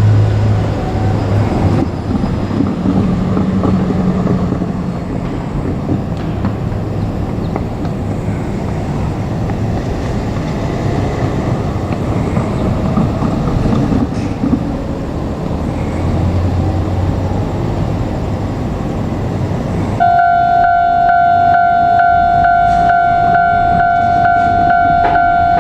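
JR Kyushu 817 series electric train running past, a steady rumble of wheels on the rails with a low motor hum. About twenty seconds in, the sound cuts abruptly to a steady high held tone.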